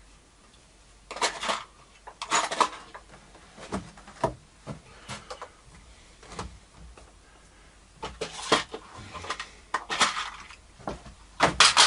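Scattered light clicks, knocks and rustles of things being handled at a workbench, about eight short sounds spread apart.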